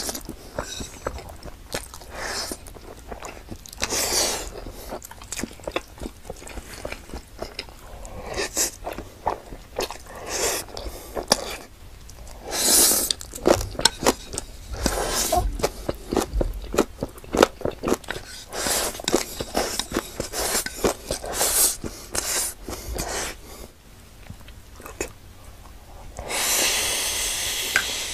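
Close-up mouth sounds of a man eating black-bean-sauce noodles (jjajangmyeon): wet chewing and smacking, with noodles slurped in several times, the longest slurp lasting about two seconds near the end.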